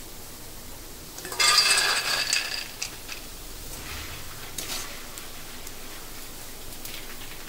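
Metal kitchen utensils clattering and ringing for about a second, with a few lighter knocks afterwards, over a faint steady hiss of hot frying oil.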